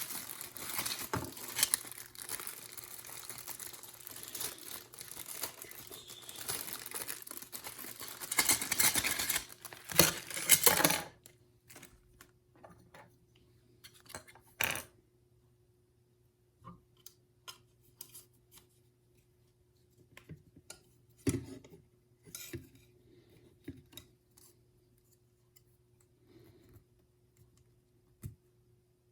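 Plastic packaging crinkling and tearing as the pieces of a snap-together model airliner are unwrapped, louder for a moment about nine seconds in and stopping suddenly at about eleven seconds. After that, scattered light clicks and taps of small plastic model parts being handled, over a faint steady hum.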